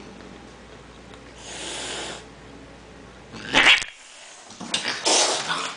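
Angry domestic cat hissing three times: a hiss about a second and a half in, a short, loud spit about halfway through, and a longer hiss near the end.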